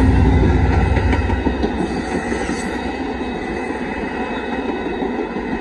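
Amtrak passenger train passing close by at a grade crossing. The locomotive's heavy rumble fades after about a second and a half into the steady rolling noise of the passenger cars on the rails.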